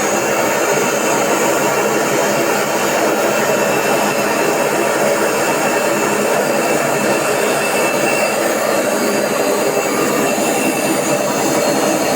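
AEG Öko Lavamat 4100 washing machine in a fast spin, a loud steady roar with a few whining tones over it and no change in pitch. The roar comes from the drum's worn bearings.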